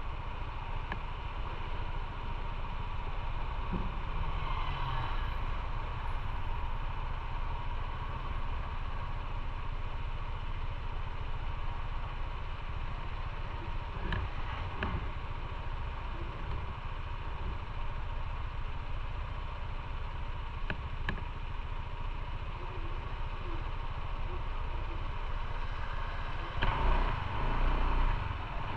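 Motorcycle engine idling steadily while stopped in traffic, then growing louder near the end as it pulls away.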